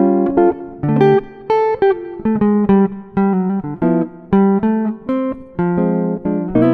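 Background music: acoustic guitar playing a flowing run of plucked notes, several a second.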